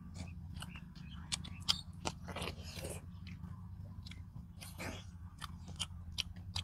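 People eating fried fish with rice and curry: wet chewing, lip smacks and scattered short crunchy bites, over a steady low hum.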